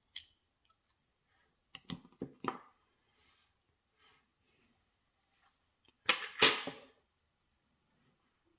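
Small metal clicks and clatter of a KIK lock cylinder being taken apart, its core pushed out with a follower. A few sharp clicks come in short clusters, the loudest rattle about six seconds in.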